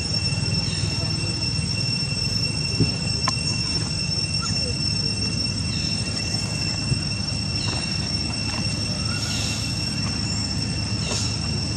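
Steady high-pitched insect drone, two unbroken tones held at one pitch, over a low rumble of background noise, with a few faint short chirps.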